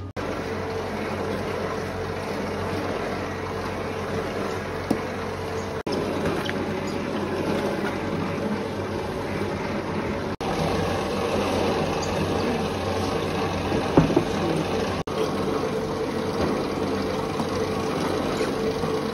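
Steady running of bakery machinery: a motor hum with an even whirring drone, broken by three short dropouts.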